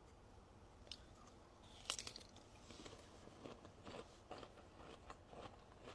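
A person biting into a fresh guava with a crisp crunch about two seconds in, then chewing the firm fruit in soft, irregular crunches.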